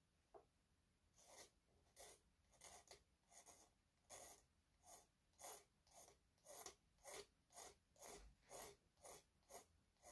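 Small hand file rasping faintly in short strokes, two or three a second, on the bone face fitted to a cello bow's tip, starting about a second in: trimming and squaring off the new bone piece.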